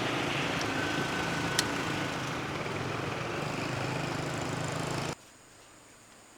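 A small engine running steadily, then stopping abruptly about five seconds in.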